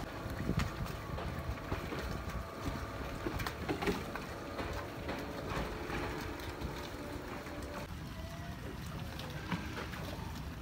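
Outboard engines of a passenger speedboat humming faintly over a low wind rumble on the microphone; the engine tone drops away about eight seconds in.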